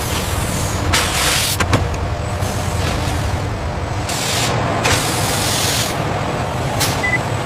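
Factory-floor machinery noise: a steady low rumble with two longer bursts of hissing, a few sharp clicks or knocks, and a short high beep near the end.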